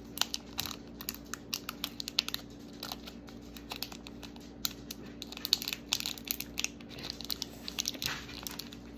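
Small plastic bag crinkling and crackling in a run of quick, irregular clicks as fingers pick and tug at it to work a tiny toy miniature out.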